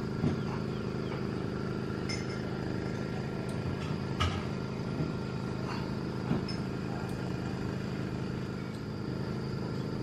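Steady engine drone, with a few light knocks scattered through it.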